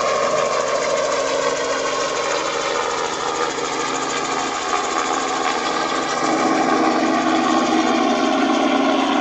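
Light two-bladed helicopter flying low overhead, its engine and rotor running steadily with a fast, even beat; the low hum grows a little louder over the last few seconds.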